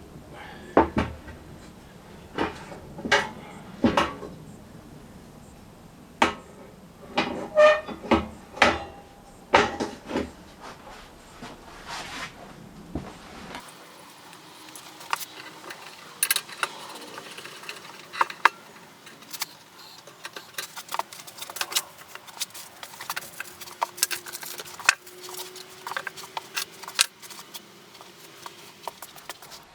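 Scattered knocks, clicks and clatter of hard objects being handled and set down, heaviest in the first half; the background changes abruptly about halfway through.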